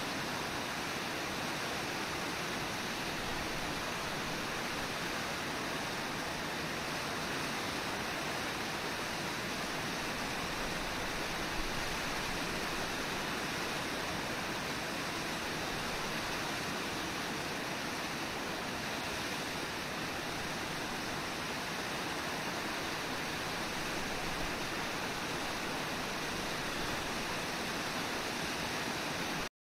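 Water pouring over Brooks Falls, a low, wide river waterfall, making a steady, even rushing hiss. It cuts off suddenly right at the end.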